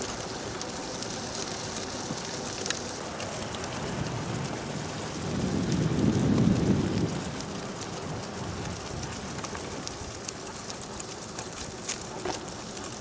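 Steady wet hiss of wheels rolling over a rain-soaked road, with scattered small ticks and a low rumble that swells about five to seven seconds in.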